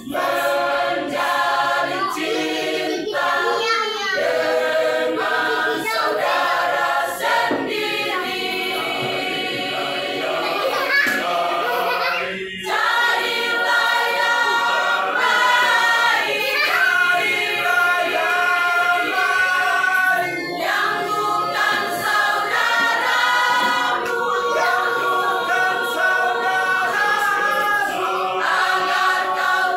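A mixed choir of men and women singing masamper, the Sangihe-Talaud a cappella part-song, in harmony, with long held notes and short breaks between phrases about twelve and twenty seconds in.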